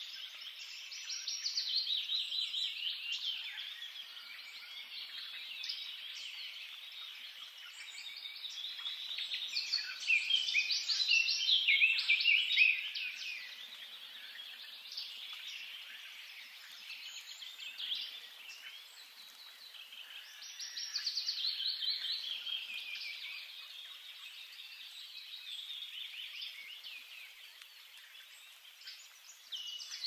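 Several songbirds singing at once, a dense run of fast chirps and trills that swells and fades, loudest around ten to thirteen seconds in.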